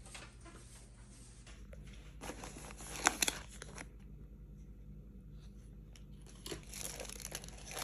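Packaging being crinkled and torn, with a few sharp rips about three seconds in and more rustling near the end, over a low steady hum.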